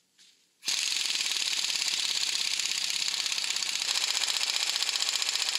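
Pneumatic impact wrench hammering rapidly as it runs the new hub nut onto the wheel hub. The fast hammering starts under a second in and keeps going steadily.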